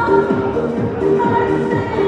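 Upbeat eurodance-style music with held synth notes over a steady dance beat.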